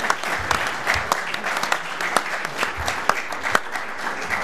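A large audience applauding after a talk: many hands clapping in a dense, steady patter with sharp individual claps standing out, beginning to die away near the end.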